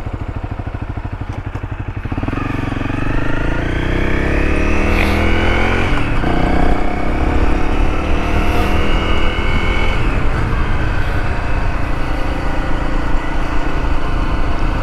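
Motorcycle engine pulsing evenly at low revs, then accelerating from about two seconds in. Its pitch climbs, drops at a gear change near six seconds, climbs again, and settles into a steady cruise from about ten seconds.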